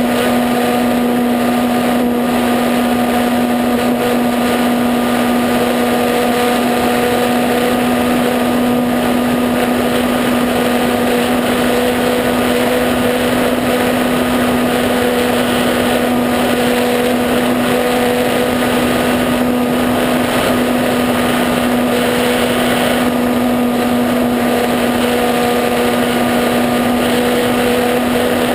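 E-flite Apprentice RC trainer plane's brushless electric motor and propeller running at a steady cruise throttle in flight: a constant droning hum whose pitch holds steady, over a hiss of wind noise.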